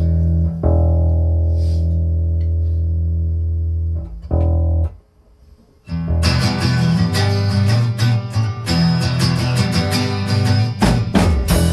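Guitar music: a low sustained chord rings for about four seconds and is struck again briefly. After a short gap, a drum kit and guitar start playing together about six seconds in.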